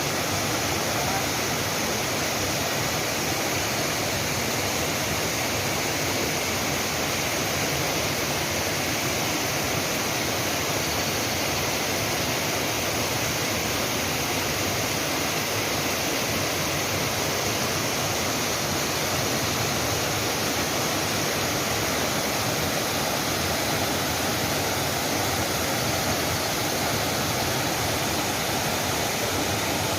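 Waterfall: falling water rushing in a steady, unbroken wash of noise.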